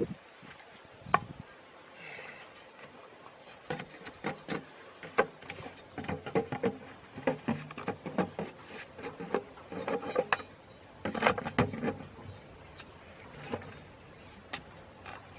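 Wooden sticks being handled while a trap is put together: irregular small knocks, clicks and rubbing, busiest from about four to twelve seconds in.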